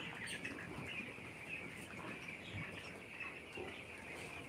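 A large flock of young broiler chickens cheeping together: a steady, fairly faint chorus of many overlapping high peeps.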